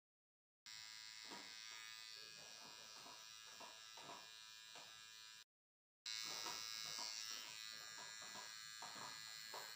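Electric hair clipper buzzing steadily as it trims hair at the side of the head. It starts under a second in, cuts out completely for about half a second just past halfway, then buzzes on.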